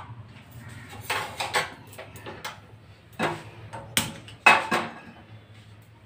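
Kitchen clatter: a run of sharp knocks and clicks as a frying pan and a two-burner gas stove are handled and the burner is lit, the loudest about four and a half seconds in, over a steady low hum.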